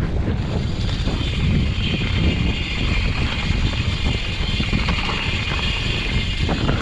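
Wind buffeting a mountain bike rider's action-camera microphone, mixed with the rumble and rattle of the bike rolling over a dirt singletrack. A steady high buzz runs over it from about half a second in.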